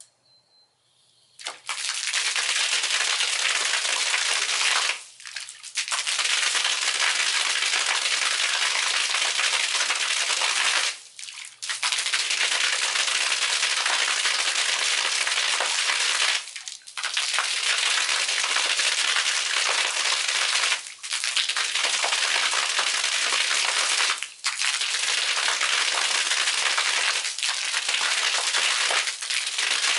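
Water from a submersible arching fountain jet splashing down, starting about a second and a half in as the jet comes on. The splashing drops away briefly six times, at uneven gaps of about four to six seconds.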